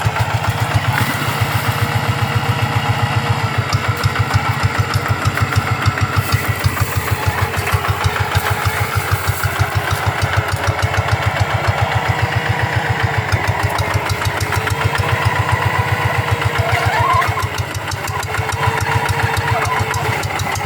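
Single-cylinder diesel engine of a two-wheel hand tractor running steadily, with a fast, even train of low pulses.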